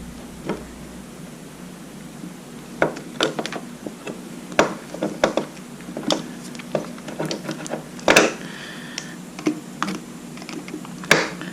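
Scattered light clicks and taps of fingers and a plastic wiring connector being squeezed and worked at to get its cover off, with one louder knock about eight seconds in, over a low steady hum.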